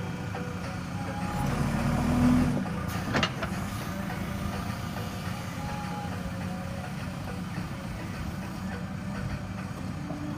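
JCB 3DX backhoe loader's diesel engine running steadily under working load. It swells louder about two seconds in, and there is one sharp knock just after three seconds.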